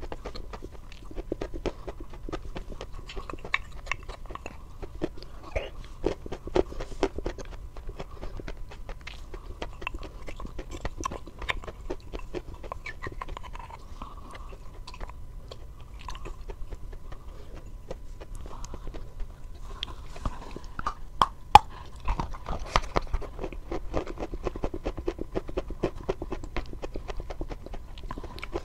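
Close-miked eating: biting and chewing a crunchy white food, with dense crisp crunches and clicks throughout and a few sharper snaps a little past the middle. A faint steady tone runs underneath.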